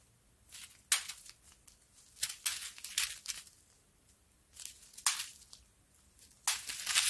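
Small plastic zip bags of square diamond-painting drills crinkling as they are handled and shuffled, in several short bursts.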